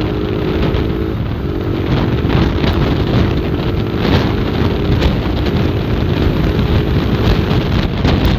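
Motorcycle engine running steadily at speed, with heavy wind rushing over the camera's microphone. The engine's tone breaks off briefly about a second in, then carries on.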